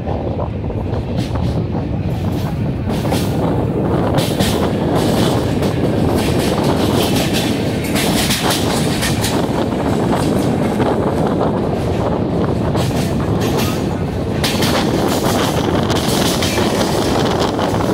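Indian Railways train running at speed, heard from aboard: a steady rumble and rattle of wheels on the rails.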